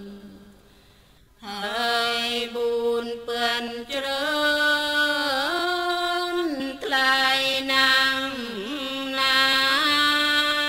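A single voice chants a Thai Buddhist text in long, drawn-out melodic tones that slide up and down between held notes. It breaks off briefly near the start and resumes about a second and a half in.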